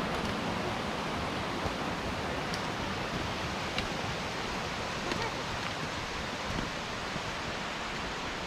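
Steady outdoor rushing noise, like moving air or water, with a few faint clicks.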